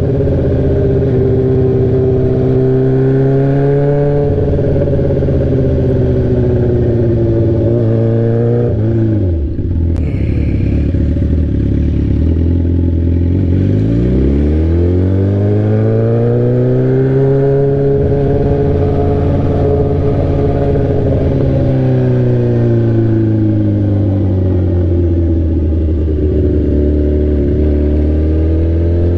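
Straight-piped sport bike engine running loud while riding. The engine note holds steady, drops sharply about nine seconds in and stays low, then climbs as the bike pulls away from about thirteen seconds. It eases off after about twenty seconds and rises again near the end.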